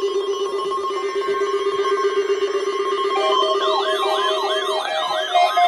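NOAA Weather Radio 1050 Hz alarm test tone sounding steadily. About three seconds in, a weather radio receiver's alert siren starts warbling rapidly, set off automatically by the test tones.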